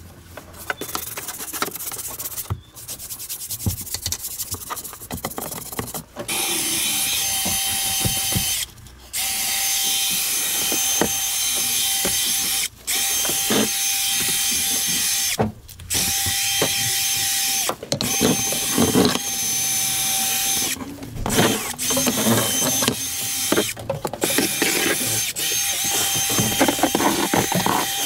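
Hand scrubbing at first. Then, from about six seconds in, a cordless drill with a scrub brush attachment runs in long stretches with a steady whine, stopping briefly several times, as it scrubs the truck's floor mat.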